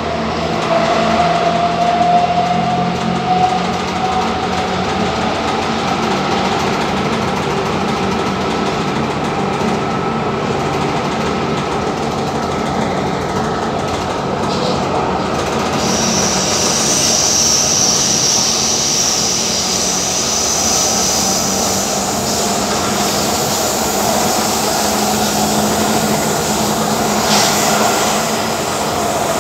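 An Athens Metro Line 1 electric train running along the track, heard from inside the carriage: a steady rumble, with a whine that rises in pitch over the first few seconds. A high-pitched squeal joins for several seconds past the middle.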